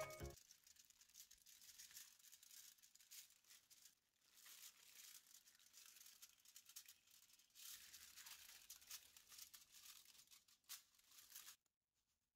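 Faint, irregular crinkling and rustling of aluminium foil and a plastic food glove as the membrane is pried and peeled off a rack of raw pork ribs. It cuts off suddenly near the end.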